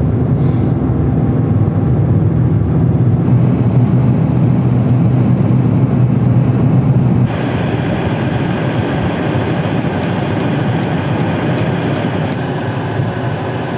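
Pickup truck cabin noise while driving: a steady low engine and road hum, which switches abruptly about seven seconds in to a brighter, hissier rush of road and wind noise.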